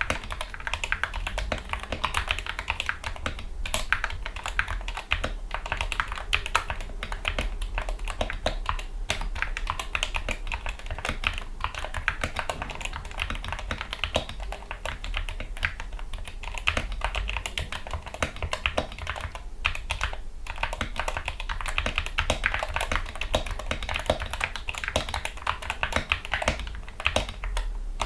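Typing on a Gamakay MK61 mechanical keyboard with lubricated Gateron Yellow optical linear switches, PBT keycaps and foam dampening inside the case: a steady run of keystrokes, many a second, without pause.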